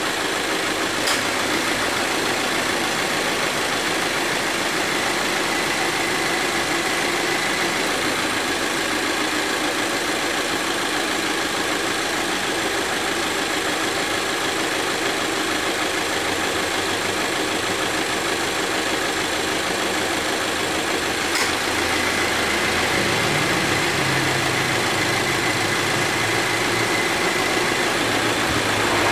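A 2018 Subaru Forester idling with the air conditioning on, under a steady rush of fan noise. A sharp click about a second in and another about 21 seconds in, as the A/C compressor clutch engages. After the second click a faint steady whine and a low hum join. This is the compressor cycling on after its start-up noise was repaired.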